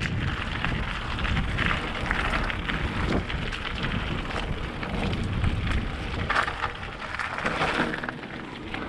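Wind rushing over the microphone, a rough steady noise with a shifting low rumble and scattered crackles.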